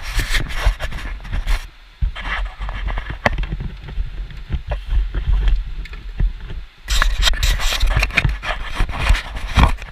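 Handling noise close to an action camera's microphone: irregular rubbing and scraping with scattered clicks over a low wind rumble, busiest near the end.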